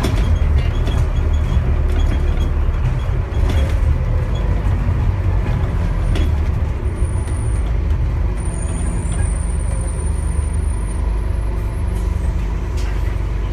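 Scania N230UD double-decker bus engine running steadily under load, a loud low drone, with a few knocks or rattles and a faint high whistle in the middle.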